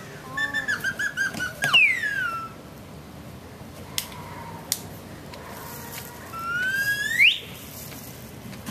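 Whistle-like sound effects: a quick run of short chirping notes ending in a falling glide, then two sharp clicks, and a few seconds later a single rising glide.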